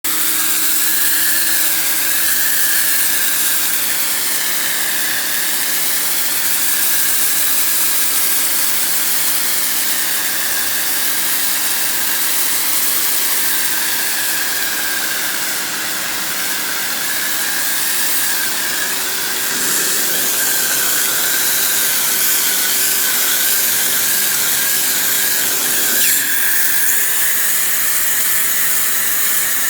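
Paxcess electric pressure washer running: a steady motor hum under the loud hiss of the water jet. Its sound shifts slightly about 26 seconds in.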